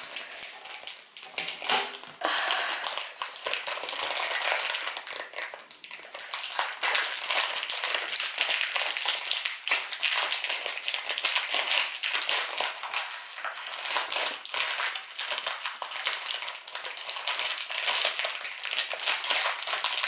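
MoYu WeiLong GTS 2 3x3 speedcube being turned fast in the hands: a continuous rapid clatter of plastic pieces clicking as the layers turn.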